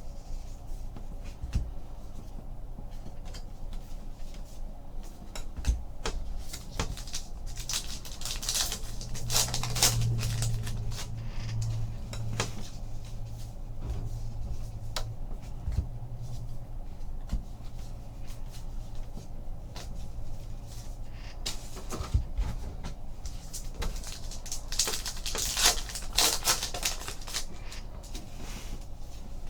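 Trading cards being handled and flipped through on a table, with many small clicks and taps, and twice a brief rustle of packs or wrappers, about a third of the way in and again near the end.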